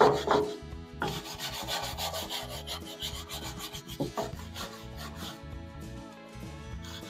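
Stiff hand brush scrubbing back and forth over the rusty, dirty steel deck of a bush hog (rotary cutter): a quick, rhythmic rasping, stroke after stroke, to loosen rust and grime before painting.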